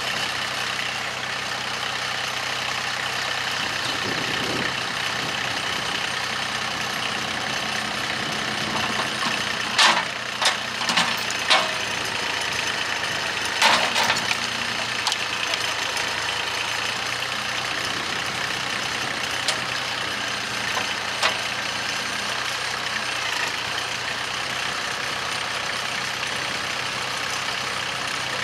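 Compact farm tractor engine idling steadily, with a few sharp knocks about ten seconds in and again a few seconds later.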